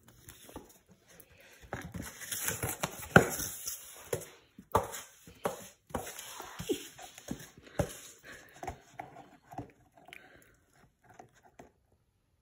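Italian Greyhound puppy playing with its toys: irregular knocks, scuffles and rustling from tugging and chewing, loudest about three seconds in and dying away near the end.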